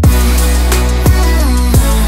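Electronic background music with a steady deep bass and repeated kick drums.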